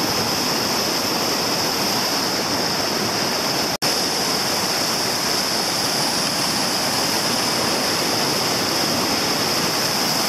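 Whitewater rapid rushing steadily, a loud, even roar of broken water; the sound cuts out for an instant about four seconds in and resumes unchanged.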